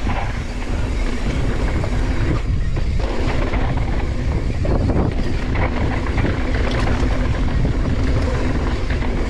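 Mountain bike descending a dirt downhill trail at speed: steady wind rush on an action-camera microphone, with tyre noise on the dirt and the bike rattling over bumps.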